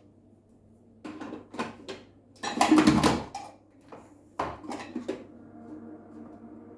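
Kitchenware being handled, with a run of knocks and clatters of hard dishes or utensils; the loudest cluster comes about halfway through.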